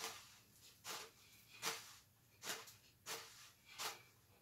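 Faint, rhythmic hissing swishes, about one every three-quarters of a second, from a frying pan of pancake batter being tilted and swirled over a gas burner.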